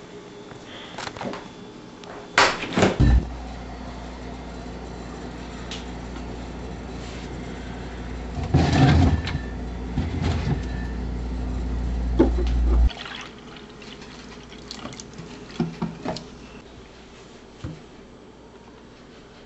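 Kitchen handling sounds: sharp knocks and clunks, and a refrigerator and a water container handled with liquid rushing or pouring. A steady low hum runs under it and stops abruptly about thirteen seconds in, and a few light clicks follow.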